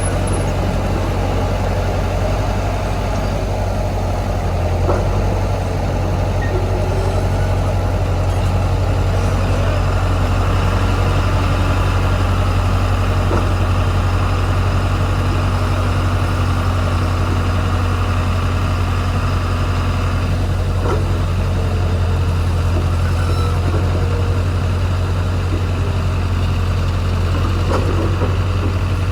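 Heavy diesel engine running steadily at a low, even rumble.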